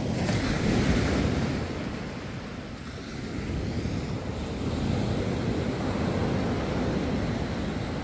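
Small waves breaking and washing up a pebble shore, loudest about a second in, with wind rumbling on the microphone.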